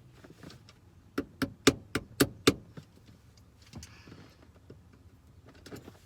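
A quick run of about six sharp metallic clicks, then a few faint knocks, as the retaining pins are worked out of the shifter cable ends.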